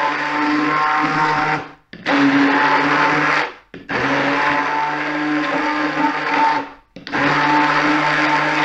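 Hand-held immersion blender running in a bowl, blending a banana and syrup mixture smooth. It is pulsed: the motor stops briefly and starts again three times, at about two, four and seven seconds in.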